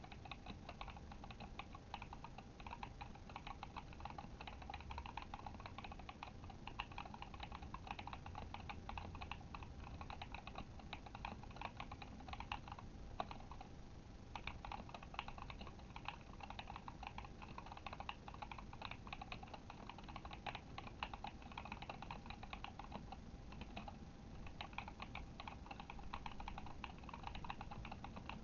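Continuous typing on a Kemove Shadow mechanical keyboard with Glorious Panda tactile switches: a dense, fast run of keystroke clacks with a brief lull about halfway through.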